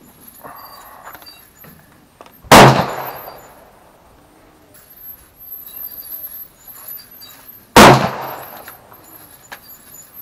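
Two single gunshots about five seconds apart, each very loud and sudden with a short fading echo.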